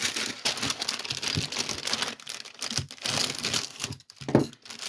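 Plastic packaging crinkling and rustling as it is handled, with a short break near the end.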